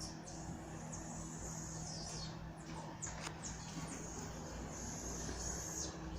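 Small monkeys calling: repeated high-pitched chirps and short trills, several overlapping, over a steady low hum.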